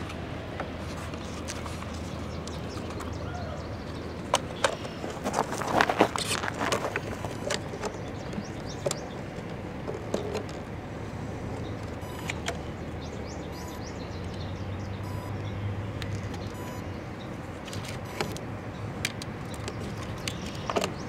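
Engine idling with a steady low hum, with scattered knocks and clatters of things being handled, the loudest cluster about four to seven seconds in.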